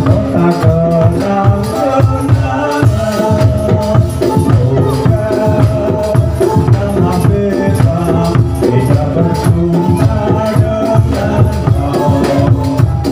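Live kubro siswo dance music: drums keep a steady beat, including a large barrel drum, under a held melody sung by men into microphones through the sound system.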